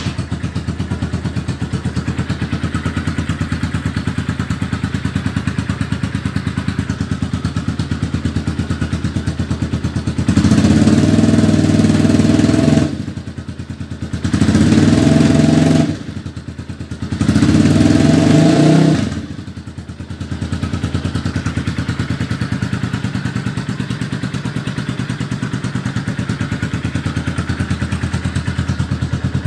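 250Z motorcycle engine idling through a custom removable sport exhaust, revved three times in a row to higher pitch about ten seconds in, each time dropping back, then settling to a steady idle again.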